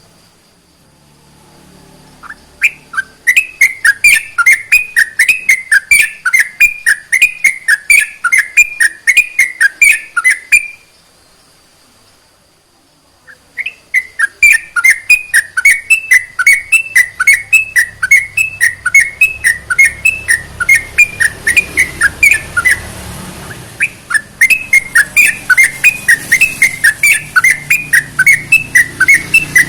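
Yellow-vented bulbul (trucukan) singing long, rapid runs of loud chirping whistled notes, about three a second, broken by a pause of a couple of seconds about a third of the way through and a brief break later on.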